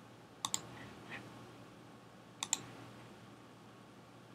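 Faint computer mouse clicks: two clicks about two seconds apart, each a quick double tick, with one softer tick between them.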